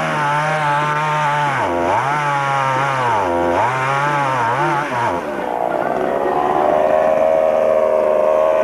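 Two-stroke chainsaw running at high revs, its pitch dropping sharply and recovering three times as the throttle is let off and opened again. After about five seconds the sound changes to a steadier, higher-pitched drone.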